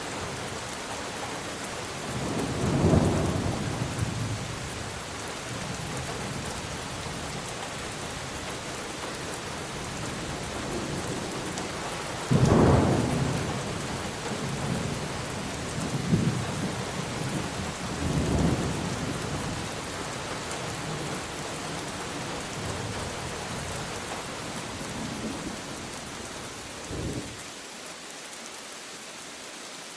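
Steady rain falling, with thunder rolling several times over it. The loudest peal starts suddenly about twelve seconds in, followed by further rumbles, the last near the end.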